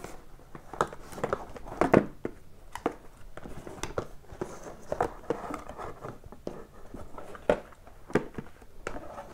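Small cardboard card boxes being pulled from an opened case and handled: irregular light knocks, taps and rustles of cardboard.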